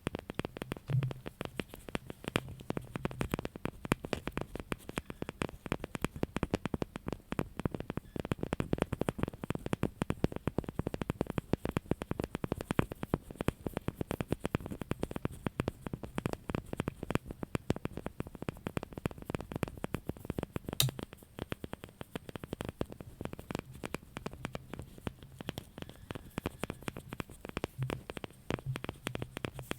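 Fingers tapping and scratching rapidly on a small hard object, a dense run of many crisp clicks a second, with one sharper click about twenty-one seconds in.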